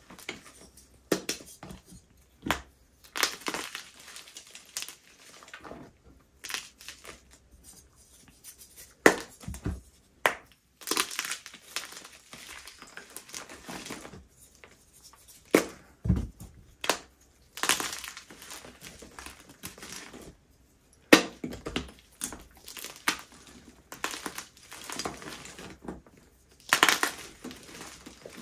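Baked, dyed gym chalk being crushed, crumbling in irregular crunches and crackles, with a few sharper, louder cracks between softer, flaky crumbling.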